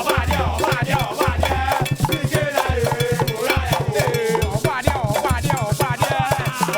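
Band music with a repeating bass line and busy percussion, over pitched melodic lines.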